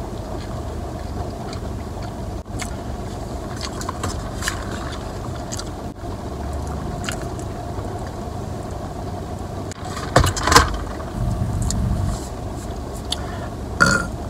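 Close-up mouth sounds of someone eating: small wet clicks while chewing the last bites of a burger, over a steady low hum inside a car. About ten seconds in there is a louder cluster of sharp noises from the drink cup and straw.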